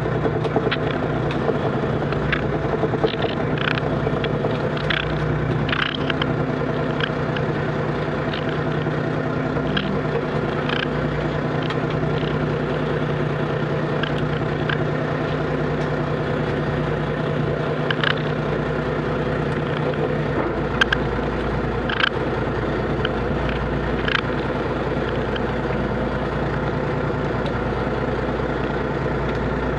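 Small fishing boat's engine and net hauler running steadily while a trammel net is hauled aboard, with scattered sharp clicks and knocks from the net and its catch coming over the hauler. One of the steady low tones in the drone drops away about two-thirds of the way through.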